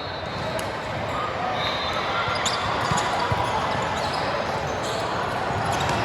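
Echoing gym sound during an indoor club match: many background voices, with a few ball thumps.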